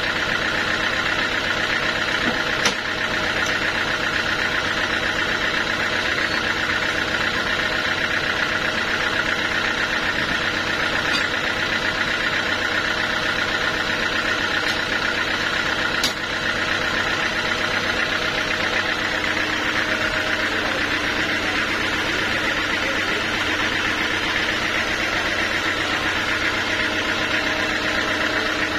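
Sawmill machinery running steadily at one even pitch, a constant engine-like drone. Two short sharp knocks come through, about three seconds in and again about sixteen seconds in.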